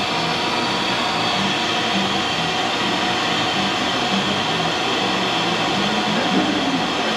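Gas burner used to heat neon glass tubing for bending, running with a steady hiss.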